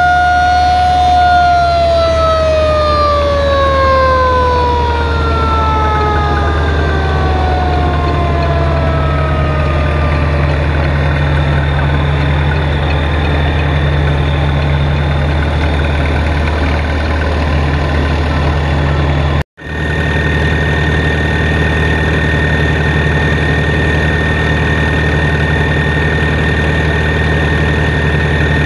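A mechanical siren, held against the crawler tractor's spinning belt pulley, holds its pitch for about a second and then winds slowly down, fading out over about ten seconds. Beneath it the vintage crawler tractor's engine runs steadily under belt load. After a sudden break about two-thirds through, the engine runs on with a thin high steady whine added.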